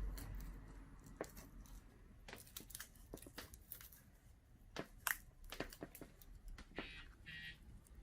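Scattered small clicks, taps and scrapes of hand work on laptop screen parts, with a brief squeak about seven seconds in.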